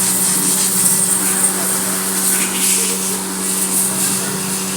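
A machine running steadily: a constant motor hum with a high hiss over it.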